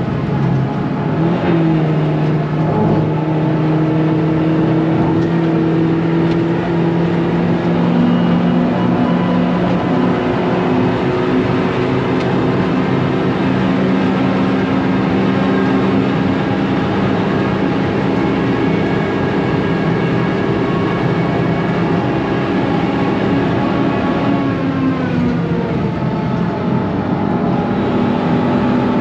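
Seat Leon Cupra 300's turbocharged four-cylinder engine heard from inside the cabin at high speed, with road and wind noise. Its pitch steps about a second in, climbs slowly and holds, then falls near the end as the car slows.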